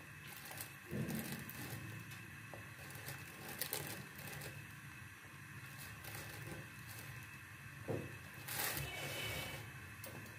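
Quiet, soft scraping and rustling of a metal spoon tipping flour onto raw julienned potato sticks in a bowl, with a few faint knocks and a brief louder rustle near the end.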